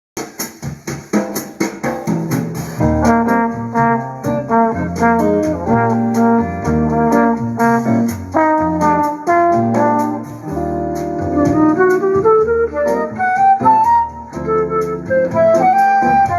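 Instrumental music with a melody line over a steady bass line, starting suddenly out of silence.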